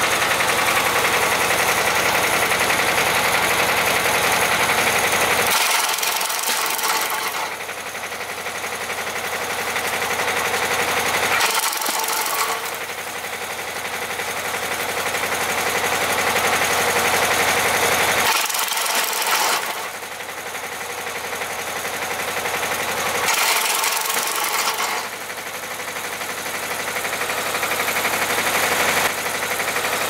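Tractor engine running steadily with a rattly, knocking clatter while driving a tractor-mounted branch logger. The low rumble drops away and comes back several times.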